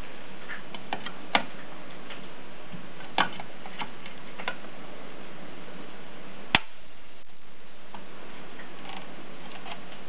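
Scattered clicks and knocks from a 1950s Groma Kolibri portable typewriter being handled, as its cover plate over the typebasket is lifted and set back down. There is one sharp click about six and a half seconds in, over a steady hiss.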